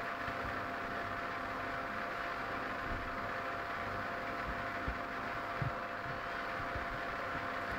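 Steady background hum with a faint steady whine, and a few soft low thumps about five to six seconds in.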